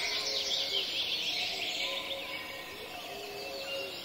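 Background ambience of small birds chirping, many short rising and falling chirps, growing fainter over the few seconds.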